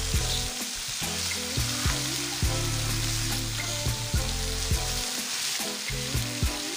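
Marinated whole tilapia frying in coconut oil on a dosa griddle, a steady sizzle, with a metal spatula knocking and scraping on the pan several times as the fish are turned.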